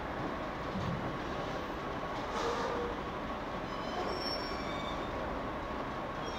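Steady background hiss and hum with a faint, even high whine running through it.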